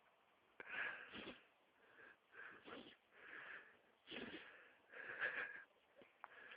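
A lurcher's wheezing, snorting breaths in a sneezing fit: about five separate rasping bursts, each about half a second long.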